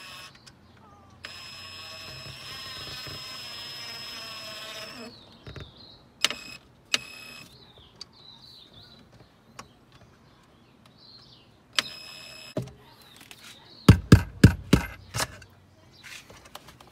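Cordless drill-driver running steadily for about four seconds with a motor whine, then a few sharp clicks, and near the end a quick run of five or six loud knocks.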